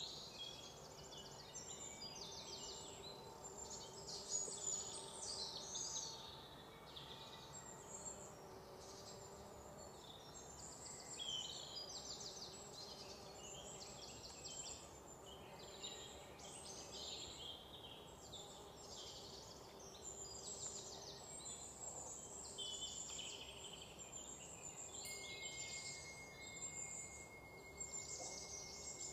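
Faint outdoor ambience of dense high-pitched chirping and rapid trills from birds and insects, over a faint steady low hum. A few seconds before the end, a thin steady high whine joins in.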